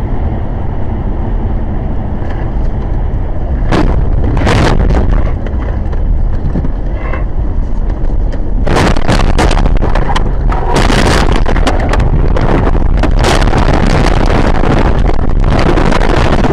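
Car interior heard on a dashcam: a steady low road-and-engine rumble with a couple of thumps about four seconds in. Then from about nine seconds a loud, rough rushing noise as the car spins and slides off the snowy road into the snowbank.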